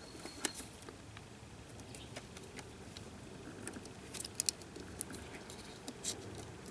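Faint small clicks and light scraping of a black multi-pin plastic wiring connector being worked with a small pick as its locking bar is slid out, with a cluster of sharper plastic clicks about four seconds in.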